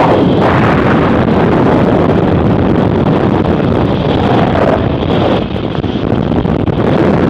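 Loud, steady rush of airflow buffeting the microphone of a camera mounted on the outside of a light aircraft in flight, with no clear engine note.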